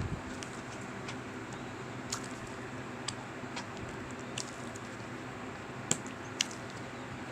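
Slime being squished and worked by hand, giving scattered small sticky pops and clicks at irregular moments, the two sharpest about six seconds in. A steady low hum runs underneath.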